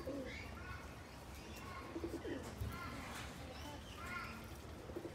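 Feral pigeons cooing in low phrases a few times, with short chirps from other birds between them.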